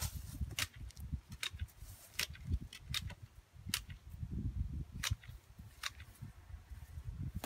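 Wooden-handled hand tool chopping into weeds and ground: a run of sharp snapping strikes about every half second to a second, with dull low thumps between them.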